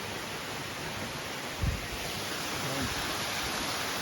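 Steady rush of falling water from a small waterfall on a stream, with one brief low thump a little before halfway.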